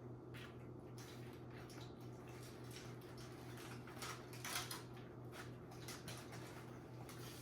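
Faint eating sounds: scattered clicks and taps of utensils and food containers, one a little louder about four and a half seconds in, over a steady low hum.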